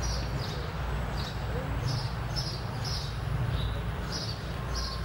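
Low, steady diesel engine rumble from a train pulling away, with small birds chirping about twice a second over it.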